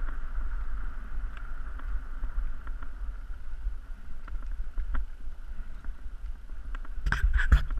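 Wind rumbling over the microphone of a camera on a road bike at speed, with a faint hiss of tyres on asphalt. Near the end the wind buffeting turns into louder rapid gusts.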